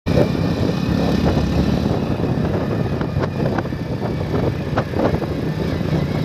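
A motorbike engine running at a steady pace while being ridden, with wind rumbling on the microphone.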